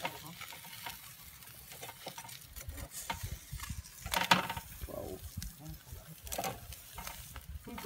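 Metal tongs clacking and scraping against a wire grill grate as whole milkfish are turned over hot charcoal, with a sharp knock about four seconds in, over a faint sizzle.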